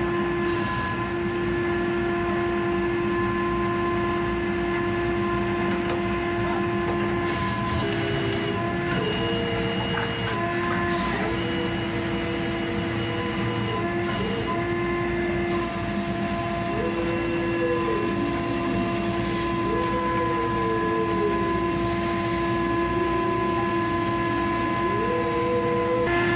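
Steady, loud hum of dockside machinery, with a second, higher whine that comes in and glides away several times.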